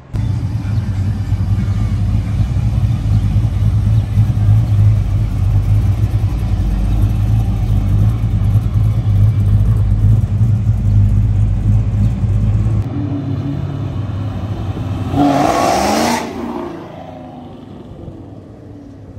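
Car engines pulling away one after another. A deep, steady engine rumble runs for the first two-thirds. About fifteen seconds in comes a short, loud rev rising in pitch as a car accelerates off, and a quieter engine rumble follows.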